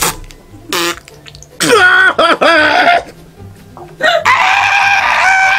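A man gagging and retching on a mouthful of food: a sharp breath, then two long strained, groaning heaves, the second held steady from about four seconds in.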